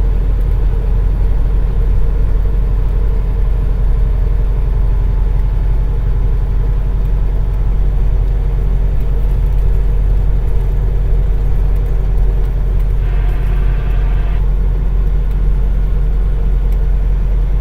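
Semi truck's Cummins ISX diesel engine and road noise, a steady low rumble heard from inside the cab while driving. A brief higher buzzing tone comes in about thirteen seconds in and stops a second and a half later.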